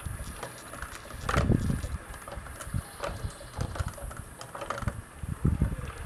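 Wooden bevel gears of a whirligig's synchronizing gearbox turning as the blades spin, making irregular clicks and knocks. Louder low rumbles come about a second in and near the end.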